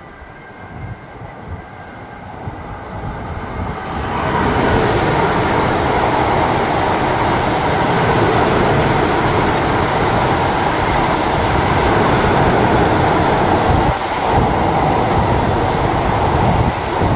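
NS electric passenger train approaching and running along the platform. Its rolling noise grows over about four seconds, then stays loud and steady.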